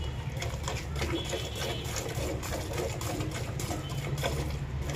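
A cow being milked by hand: squirts of milk hitting the pail, two or three a second, over a steady low hum.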